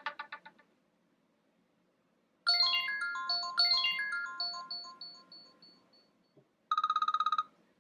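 iOS 7 ringtones playing one after another. First the last of a fast pulsing tone, then after a gap of about two seconds a melody of clean bell-like electronic notes that fades away. About a second before the end comes a short burst of very fast beeping.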